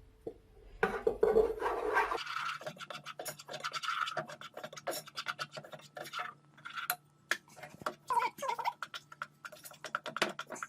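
A utensil stirring and scraping in a saucepan: a quick run of short scrapes and taps from about two seconds in, over a faint low steady hum.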